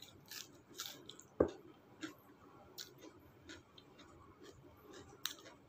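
A person chewing a mouthful of rice and chicken curry, with wet mouth clicks and smacks at irregular intervals and one louder knock about a second and a half in.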